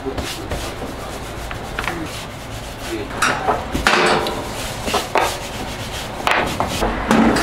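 Hotteok dough rounds set down on a flat steel griddle by plastic-gloved hands, then the griddle's hinged stainless steel lid lowered and clanking shut about four seconds in, followed by a few lighter knocks.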